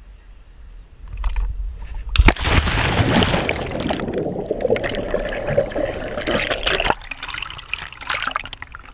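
A jump into the sea: a splash about two seconds in, then the rushing and bubbling of water around a camera held underwater, which cuts off about seven seconds in as the camera surfaces, followed by water sloshing at the surface.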